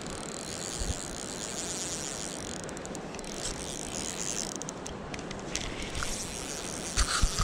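Steady rush of creek water, with the whirring clicks of a spinning reel being cranked at times, most strongly near the end, as a hooked steelhead is played.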